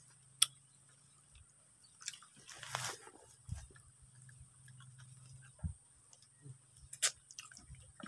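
People chewing and biting barbecued pork ribs eaten by hand, with scattered smacking clicks and a short, louder noisy stretch about three seconds in.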